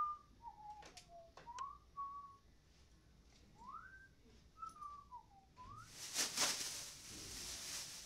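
A person whistling a slow tune, single notes sliding up and down with short gaps, with a few faint clicks. About six seconds in comes a loud crinkling rustle of a plastic trash bag being shaken out.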